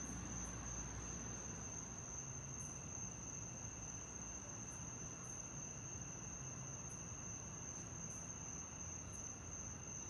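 Crickets trilling steadily, a continuous high-pitched chorus over faint low background noise.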